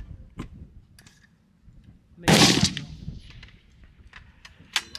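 A single gunshot about two seconds in, with a short ringing tail, followed near the end by a sharp click.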